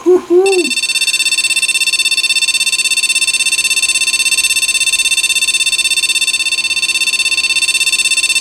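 PC speaker on a Gigabyte GA-8IK1100 Pentium 4 motherboard sounding a continuous high-pitched POST beep, starting about half a second in. It signals a boot error with no video output, which the owner suspects is the memory.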